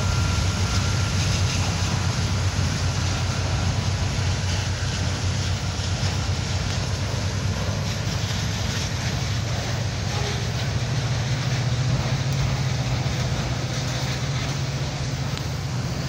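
Freight train cars, autoracks among them, rolling past close by: a steady rumble of steel wheels on the rails.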